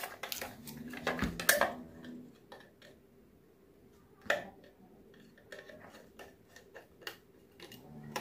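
Small metal clicks and taps from a screwdriver working the case screws of a metal-cased LED emergency light and from handling the case: scattered light ticks, the loudest about a second and a half in and again a little after four seconds.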